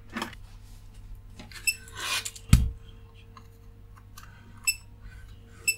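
Small clicks and taps of tweezers and a soldering iron being handled against a circuit board, with a louder knock about two and a half seconds in, over a faint steady electrical hum.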